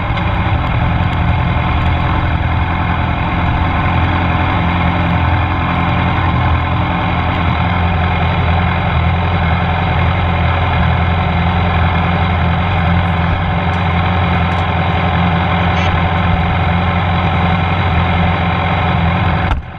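Middleweight superbike engine idling steadily, with no revving.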